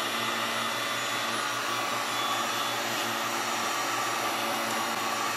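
Electric heat gun running steadily, its fan blowing hot air over a vinyl door wrap to soften it and work out wrinkles and air bubbles.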